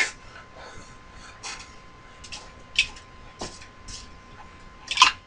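Scattered light clicks, taps and clinks of metal tools being handled at a milling machine, irregular and a second or so apart, with a faint steady hum beneath.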